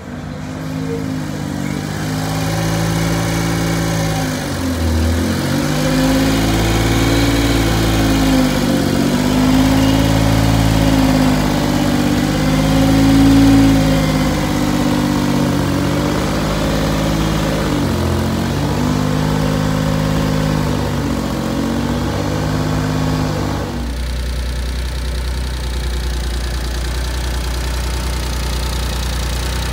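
1997 Suzuki Carry kei truck's three-cylinder engine running, its pitch repeatedly dipping and rising as the revs change. About 24 seconds in, the sound changes to a steady low idle.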